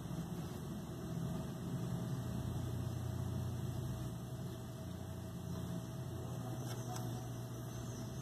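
A steady low background hum, growing a little louder about two seconds in.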